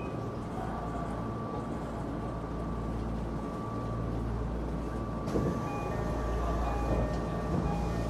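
Electric commuter train standing at a station platform, its equipment giving a steady low hum with a constant high-pitched whine. A short knock comes about five seconds in.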